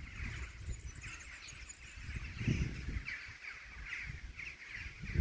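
A large flock of rooks cawing, many calls overlapping into a continuous chorus. Low rumbling thumps run underneath, loudest about two and a half seconds in and again at the end.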